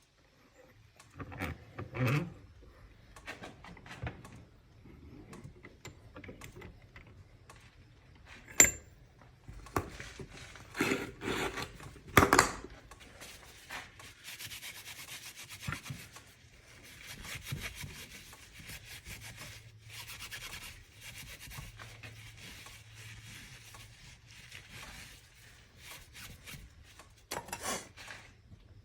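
Hand work on a Ridgid K9-306 flexshaft drain-cleaning cable: scattered clicks and metallic knocks, then from about halfway in a long stretch of scraping and rubbing on the cable.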